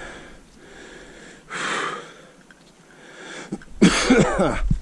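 A person's breathy vocal sounds: a short breath about one and a half seconds in, then a sudden loud vocal burst with falling pitch near the end.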